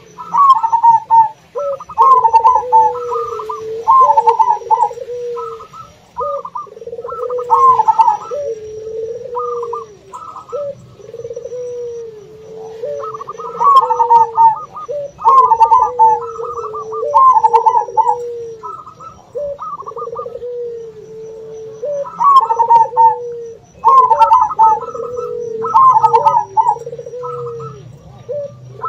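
Zebra doves (perkutut) calling in repeated rolling, trilled coo phrases, overlapping the lower, steadier coos of puter doves. The two keep up a back-and-forth of calls, each phrase lasting about a second, with brief lulls.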